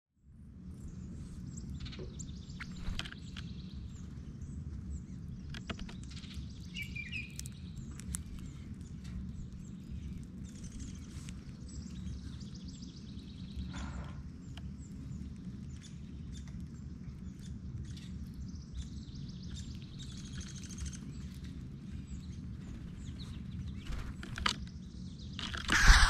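Wild birds chirping now and then over a steady low outdoor rumble, with scattered light clicks and a louder burst of sound near the end.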